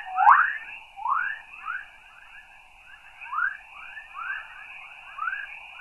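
Van Allen Probe B plasma-wave recording of Earth's magnetosphere played as sound: chorus waves, a string of rising whistle-like chirps, about one or two a second, over a steady hiss. A brief tick about a third of a second in.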